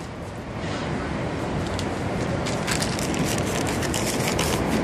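A sheet of newspaper being crumpled and crinkled in the hands, crackling more densely from about halfway through, over steady street traffic noise.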